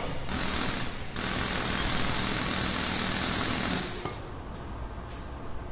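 A motor running loudly with a rough, pulsing rumble, easing off somewhat about four seconds in.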